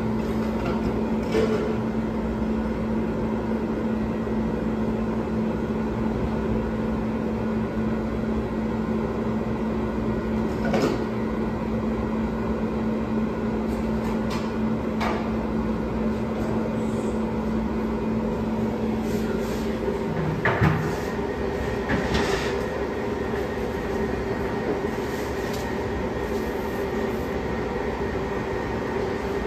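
Steady hum of kitchen machinery, with a few short knocks and clatters scattered through it. About twenty seconds in, the hum's pitch changes to a slightly higher tone.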